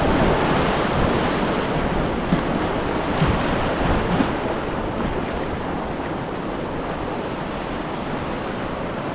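Rushing whitewater of a low-water river rapid, with wind buffeting the microphone, and a few brief louder splashes in the first half.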